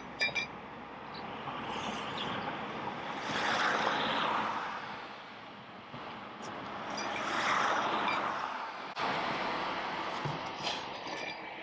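Vehicles passing on a nearby road, two or three in turn, each swelling and fading over a couple of seconds. A few light metallic clinks at the start and again near the end.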